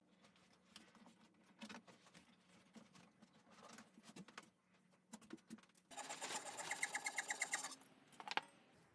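Faint rustling and scattered light clicks of wood chips and sawdust being swept off CNC-carved maple by hand. About six seconds in, a louder scratchy rasping with a quick even ticking, about eight ticks a second, runs for nearly two seconds, and a single sharp click follows.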